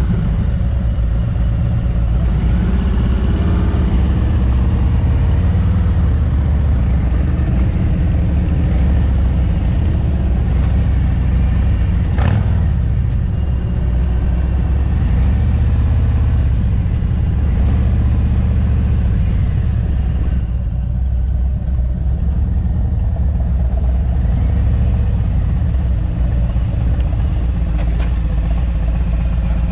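Motorcycle running steadily at riding speed, a continuous loud low rumble, with one short click about twelve seconds in.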